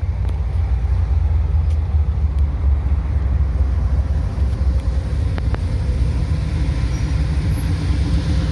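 Deep engine rumble from cars rolling in at low speed, growing a little fuller near the end.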